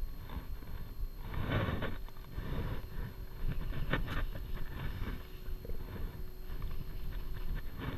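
Uneven rustling and buffeting on a body-worn action camera's microphone as the angler's shirt sleeve sweeps past it during fly casting, with one sharp click about four seconds in.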